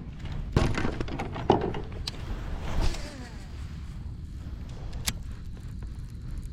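A few knocks and clicks of gear being handled in a kayak, over a steady low rumble.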